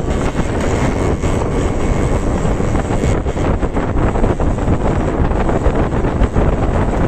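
Yamaha RX100's air-cooled two-stroke single-cylinder engine running steadily through its stock exhaust, a fast continuous popping beat.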